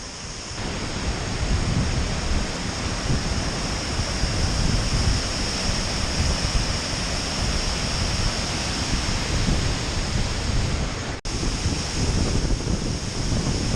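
Loud, steady roar of the Jajce waterfall on the Pliva river, heard close up at the foot of the falls, with deep rumble and wind-like buffeting on the microphone from the spray. The sound drops out for an instant about eleven seconds in.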